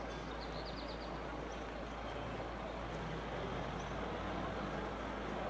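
Steady outdoor background noise of indistinct voices and a vehicle engine running, whose low hum is clearest in the middle. About half a second in there is a short, rapid high-pitched trill.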